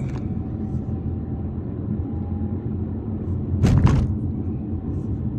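Steady low rumble of road and engine noise inside a moving 4x4's cabin. About two-thirds of the way in there is a brief thump.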